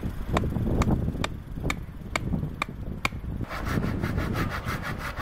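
Background music with a steady beat over wind rumbling on the microphone. Near the end, a hand saw cutting a branch in quick strokes.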